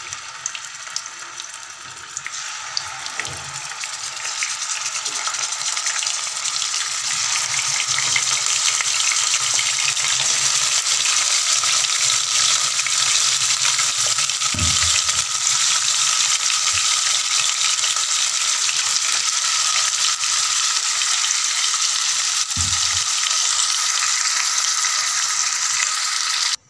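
Yoghurt-marinated chicken pieces sizzling as they fry in hot oil and ghee in a nonstick wok. The sizzle grows louder over the first several seconds as more pieces go in, then holds steady, with a few soft low knocks now and then.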